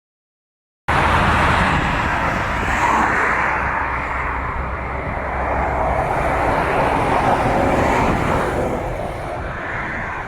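Loud, steady crowd din of many voices mixed together in a sports hall, starting abruptly about a second in after a moment of total silence.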